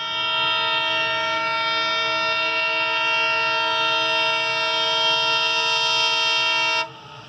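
Diesel locomotive horn sounding one long, steady blast of several tones together, cutting off abruptly near the end.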